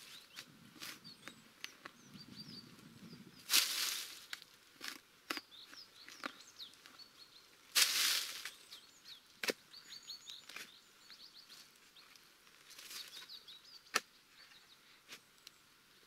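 Shovel blade cutting and scraping into dry soil and leaf litter: three louder strokes about four to five seconds apart, with lighter clicks and scrapes between. Small birds chirp briefly throughout.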